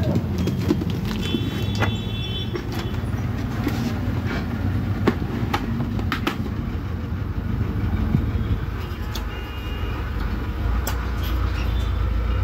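Steady low rumble of background noise with scattered sharp clicks and taps as a motorcycle helmet and its visor are handled, and a few brief high beeping tones.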